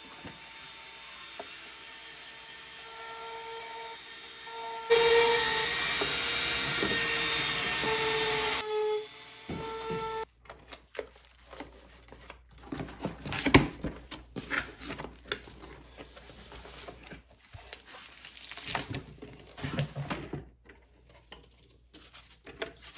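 A small handheld rotary tool's motor runs with a steady whine. About five seconds in, its bit is pressed into white oak for about four seconds, giving a louder grinding hiss. It then runs free and is switched off about ten seconds in, followed by scattered clicks and knocks of handling.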